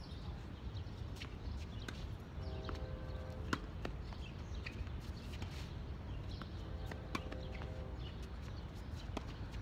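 Tennis rally: racket strings striking the ball, a sharp pop about three and a half seconds in and another a little after seven seconds, with fainter hits and bounces between, over a steady low background rumble.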